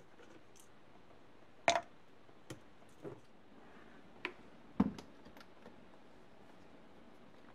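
A handful of sharp clicks and knocks of containers and a small plastic appliance being handled and set down on a counter, the loudest about a second and a half and about five seconds in.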